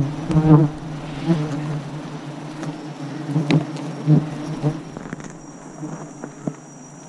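Swarm of giant honey bees buzzing around the climber in a steady low hum that weakens about five seconds in, with scattered knocks and scrapes of gloves and boots against the tree trunk.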